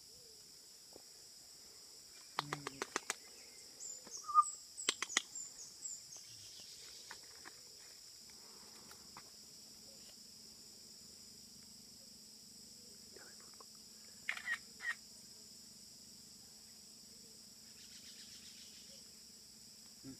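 Outdoor ambience: a steady high-pitched insect drone, broken by a quick run of sharp clicks about two and a half seconds in, a few short chirps and a brief whistle-like note around four seconds in, and two or three short calls about fourteen seconds in.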